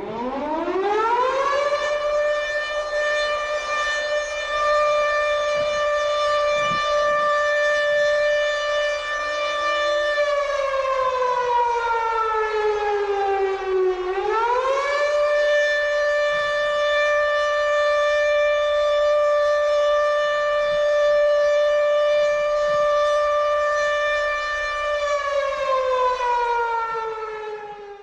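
Air raid siren wailing. Its pitch climbs at the start and holds level, sinks about ten seconds in, swings back up around fourteen seconds, holds again, then falls away near the end.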